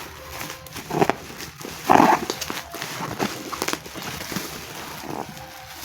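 An e-bike battery's shipping package being opened and handled: irregular knocks, rustles and scrapes of the packaging, louder about one and two seconds in.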